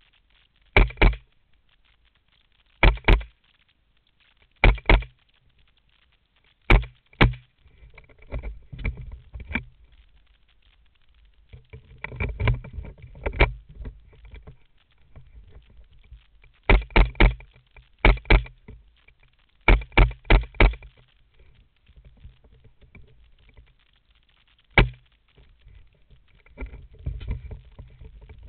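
A Mossberg tactical .22 rifle firing a string of sharp shots, some single and some in quick pairs and threes. Quieter rustling and clicking of the rifle being handled lies between the groups of shots.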